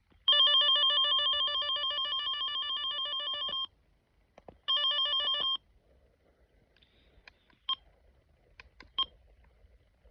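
Running Snail MD329 weather alert radio sounding a loud warbling electronic alarm tone for about three seconds, fading slightly, then a shorter one after a pause. Later come a few faint clicks and two short beeps as its buttons are pressed.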